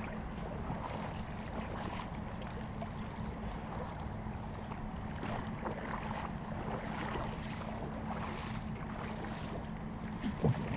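Steady rush of shallow creek water, with faint scattered splashes of wading steps.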